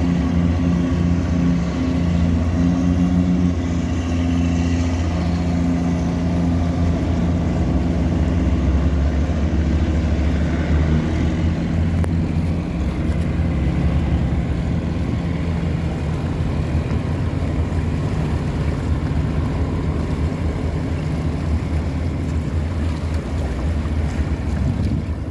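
Tugboat's diesel engine running steadily with a low hum under load while towing cargo barges against the river current, with water wash underneath.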